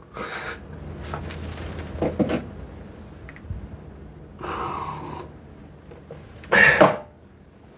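A man sipping a drink from a mug, with a brief slurping hiss about halfway through and a short, louder breath near the end.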